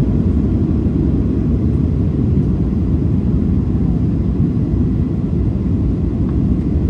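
Boeing 737-800 cabin noise on approach: its CFM56-7B turbofan engines and the airflow past the fuselage make a steady, deep rumble, heard from inside the cabin.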